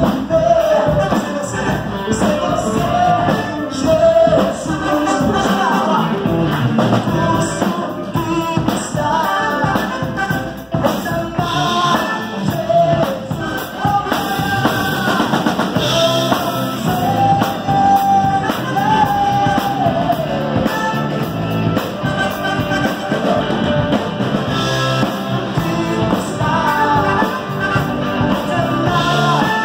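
Live gospel rock band playing: a lead singer over drum kit, electric guitar, bass and keyboard.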